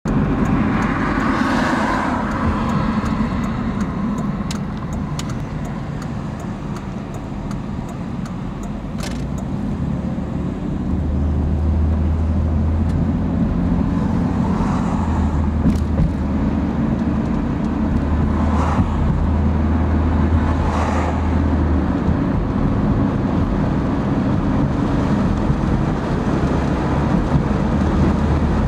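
Car driving at highway speed, heard from inside the cabin: a steady rumble of tyres and engine on the road. A few oncoming vehicles swish past.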